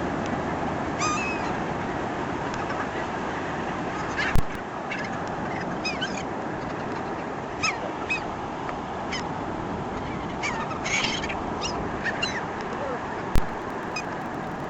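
Gulls calling repeatedly, many short, high, curved squawks over a steady rush of beach wind and surf. Two sharp knocks cut through, about four seconds in and near the end.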